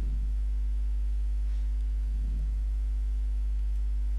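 Steady low electrical mains hum with a stack of overtones, picked up by the recording microphone, with two faint soft low sounds, one at the start and one a little past the middle.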